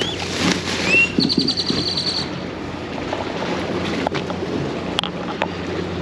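A bird calling: a rising whistled note about a second in, then a fast rattling run of high notes lasting about a second. A steady low hum and wind and water noise run underneath.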